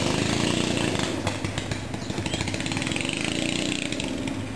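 A small engine running steadily, a continuous buzz of rapid pulses.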